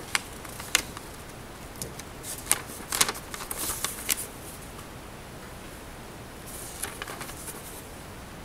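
Handling noise around a paper notebook: a couple of sharp clicks, then a busy cluster of clicks and paper rustling from about two to four seconds in, and fainter rustling around seven seconds in, over a low steady hiss.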